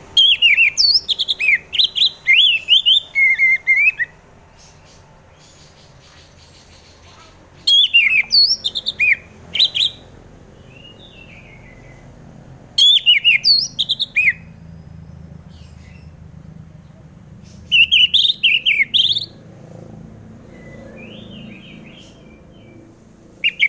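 Orange-headed thrush singing: bursts of quick, varied whistled notes that slide up and down, each phrase lasting one to four seconds. There are five phrases with pauses of a few seconds between them, and fainter chirps fill the gaps.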